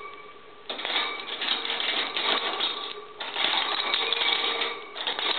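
Apple-wood pieces threaded on a metal wire clicking and rattling in rapid runs as a degu spins and gnaws at them. The clatter starts under a second in and breaks off briefly twice, a little after three seconds and near five seconds.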